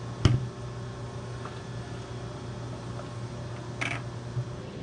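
A plastic bucket of cutting oil tipped over a milling machine's base sump: one sharp knock just after the start as the bucket rim bumps the sump, a few faint ticks, and a brief clatter near the end. A steady low hum runs underneath.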